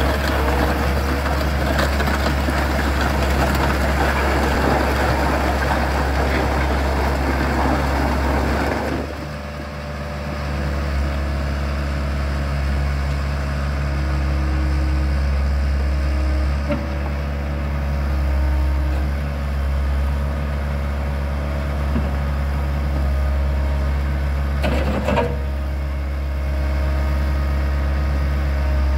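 JCB JS130 tracked excavator's diesel engine running steadily while the boom, arm and bucket are worked on the hydraulics; the sound is louder and noisier for the first third, then steadier. A single short knock near the end.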